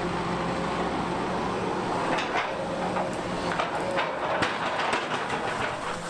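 Large Doosan DX380 crawler excavator working: steady engine and hydraulic running noise with a few sharp clanks and rattles from the machine as it moves.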